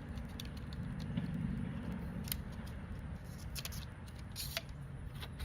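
Small clicks and light scraping as a handheld knife-sharpening kit is handled while its ceramic rods are set up, with a brief scrape about four and a half seconds in. A low rumble sits underneath.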